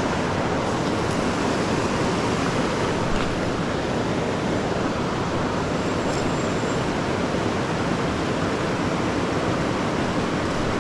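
Steady rush of river water flowing over stones, an even noise that does not change.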